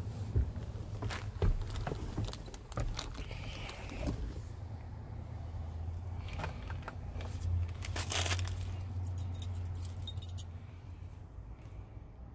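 Scattered clicks, rattles and a jingle, like keys and cab fittings being handled, over a steady low hum.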